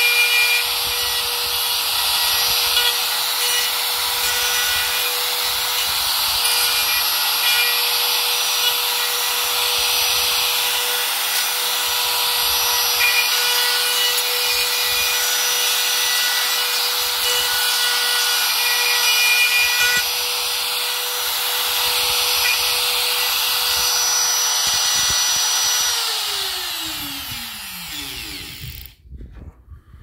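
Electric router running at constant speed with its bit cutting a hinge mortise in a wooden door edge through a plastic hinge template; the cutting noise swells and fades every few seconds as the router is moved across the cut. Near the end the router is switched off and its pitch falls as the motor spins down.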